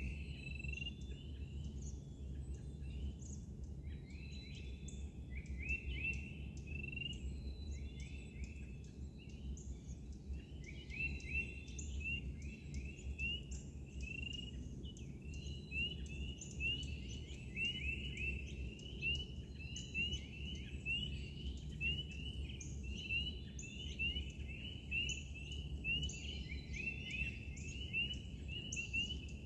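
Woodland dawn chorus: many short, high, upward-sliding chirps repeating several times a second, growing denser about a third of the way in, over a low steady rumble.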